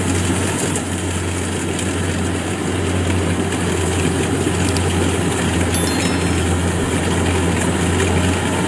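Kubota rice combine harvester running steadily as it cuts lodged rice, its engine giving a constant low drone.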